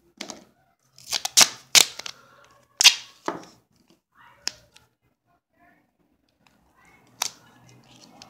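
Duct tape pulled off the roll and torn, a quick run of loud rips about a second in, then quieter handling of the tape as it is pressed and wrapped, and one sharp snap near the end.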